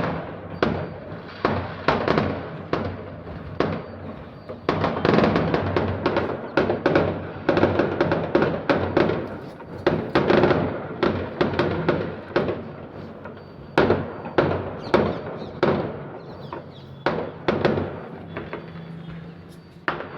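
Firecrackers going off: a long, irregular string of sharp bangs and crackles, thickest in the middle and thinning out with gaps toward the end.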